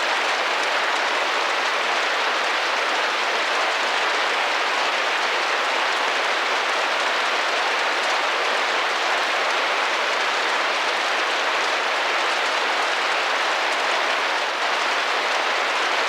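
Rain drumming against a glass window: a steady, even hiss.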